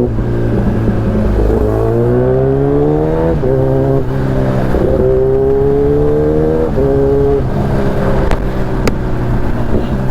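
Kawasaki Ninja ZX-10R inline-four sport bike engine pulling up through the gears. Its pitch climbs, drops back at a shift, then climbs again, a few times over. Two sharp clicks come near the end.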